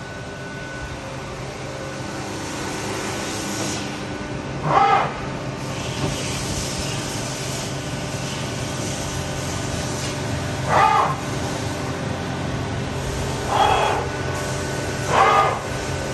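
Mazak MTV-515/40N vertical machining center running with coolant spraying inside its enclosure: a steady hiss and hum that slowly grows louder. A short pitched sound rises out of it four times.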